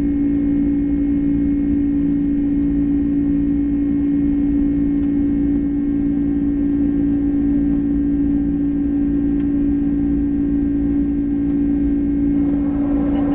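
Boeing 767 jet engines heard inside the passenger cabin at a window seat during the climb: a steady, even rumble with a constant hum held at one pitch.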